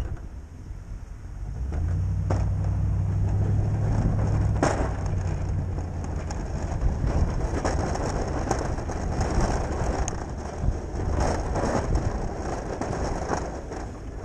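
Pickup truck engine pulling under load as a SnowEx V-plow blade pushes and scrapes snow across the pavement, with scraping and crunching throughout. The engine hum is strongest in the first few seconds, and the scraping grows rougher with many sharp scrapes later on.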